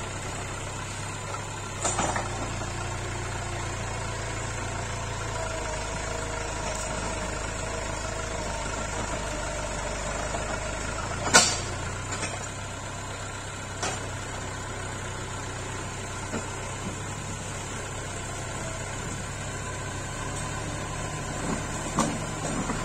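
Massey Ferguson 275 tractor's diesel engine running steadily while its front blade works a dirt track, with a few sharp knocks, the loudest about halfway through.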